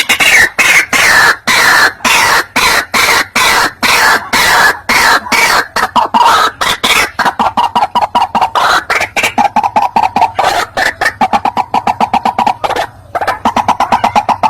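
White-breasted waterhen (ruak-ruak) calling loudly in a rapid, harsh, repeated series of notes, several a second, pausing briefly near the end. It is the bird's loud territorial calling, played as a lure to provoke rival waterhens into coming in.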